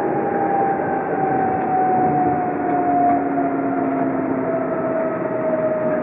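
Tohoku Shinkansen train running, heard from inside the passenger cabin in a tunnel: a steady rushing rumble with a motor whine that slowly falls in pitch, the train slowing down.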